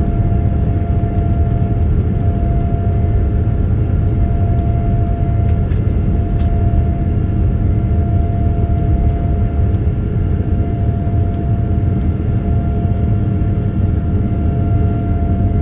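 Cabin noise inside a Boeing 787-9 climbing out just after takeoff: a steady, loud jet-engine rumble with a steady hum tone running through it.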